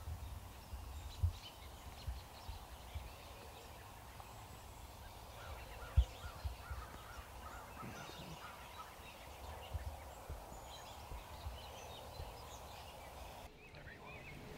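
A flock of wild turkeys feeding and calling softly, with faint scattered clucks and a quick run of short yelping notes about six seconds in. Low bumps of wind on the microphone run underneath, the loudest a single thump about six seconds in.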